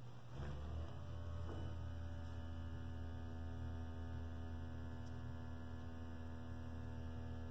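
Purring cat-shaped plush footrest: its purr unit gives a steady, even low electric hum with a buzzy edge, switching on about half a second in.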